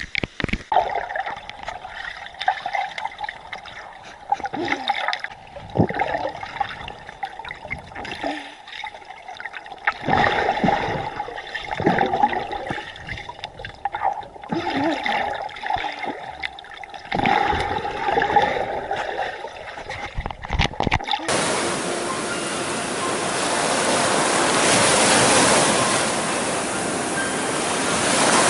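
Running water, gurgling and uneven, then about 21 seconds in a steady, loud rush of a waterfall that starts suddenly.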